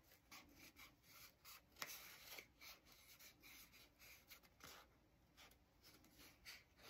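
Faint scratchy rubbing and snipping of scissors cutting wavy edges into a sheet of craft foam, with a few short sharp clicks.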